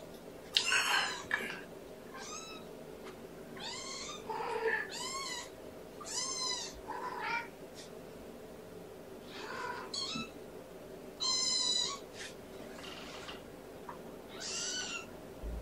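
Three-week-old kittens mewing repeatedly: about a dozen short, high-pitched mews, each rising then falling in pitch, spaced a second or so apart, over a faint steady hum.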